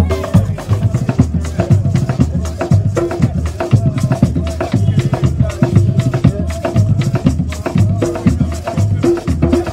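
Binghistra music: Nyabinghi-style hand drums beaten in a steady, dense rhythm, with a few held melodic tones over the drumming.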